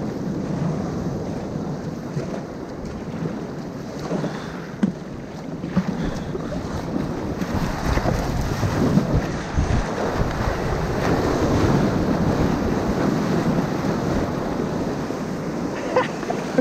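Breaking surf and foaming whitewash rushing around a sit-on-top kayak as it is paddled in through the shore break, with wind buffeting the microphone. A few brief sharp splashes stand out along the way.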